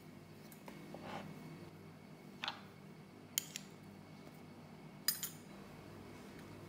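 A small dish clinking and tapping against a glass mixing bowl as butter is tipped into flour: a handful of short, sharp clinks, some ringing briefly, the loudest about five seconds in.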